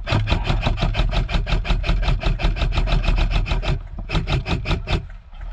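Airsoft electric rifle firing a long full-auto burst, about eight shots a second for nearly four seconds, followed by a few scattered shots.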